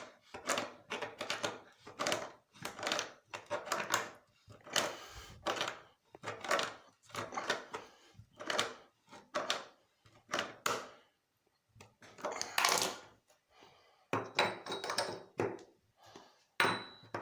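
Tools and faucet parts being handled at a bathroom sink: a string of short knocks and clatters, several a second at times, with pauses.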